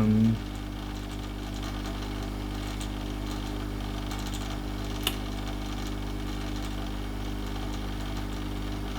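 Steady hum of a hot-air tool's fan running in its cool-down mode, with a single sharp click about five seconds in.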